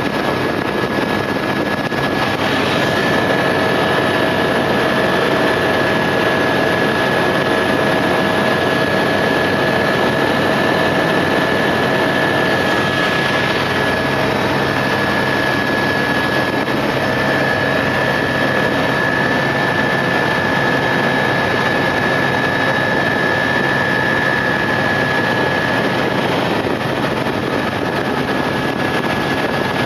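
Steady drone of a small aircraft, most likely a helicopter, heard from inside the cabin in flight: engine and airflow noise with a steady high whine running through it.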